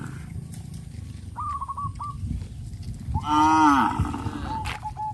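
A cow mooing: one loud call about three seconds in that falls in pitch. Fainter, thin wavering calls come before it and again near the end, over a steady low rumble.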